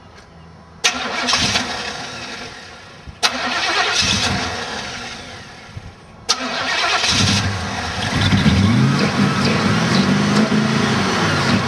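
Chevrolet Monte Carlo SS engine with a Holley 600 carburetor being started: three sharp clicks of the starter, the first two each followed by a few seconds of cranking and firing that dies away. On the third try, about six seconds in, it catches and keeps running, its pitch rising and falling.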